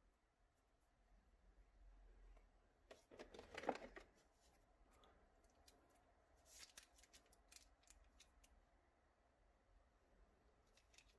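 Faint handling noises of a Wi-Fi antenna being turned and bent in the hands: scattered light clicks and rustles, with a louder rustle about three to four seconds in.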